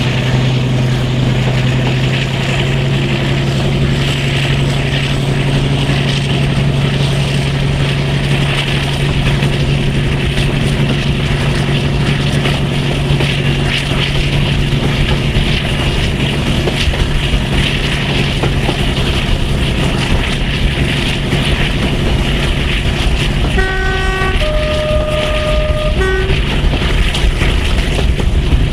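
Train running at speed, heard from an open carriage window: wheel and wind rush over the low drone of the Class 42 Warship locomotive's Maybach diesel engines, which fades after about ten seconds. Near the end the locomotive's two-tone horn sounds three short notes, low, high, then low.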